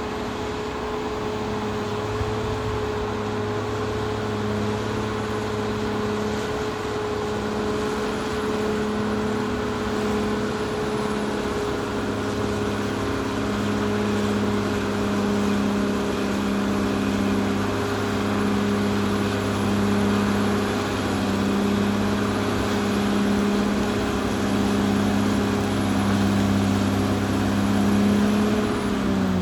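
Caterpillar D6R XL bulldozer's diesel engine running steadily under work, a constant drone with a slow regular throb and a steady whine above it. The engine note drops just at the end.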